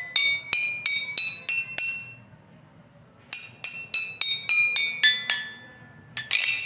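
Xylophone bars struck one after another in quick runs of clear, ringing notes, about seven in a run, with a short pause between runs. Each bar's length sets its note: the longer bars sound lower, the shorter bars higher.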